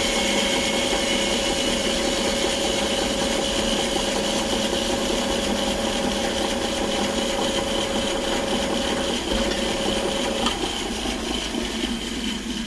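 Bandsaw's induction motor and blade running steadily with a constant whine, fading somewhat near the end. The motor only buzzes when switched on and has to be coaxed into starting, a fault the owner can't pin down.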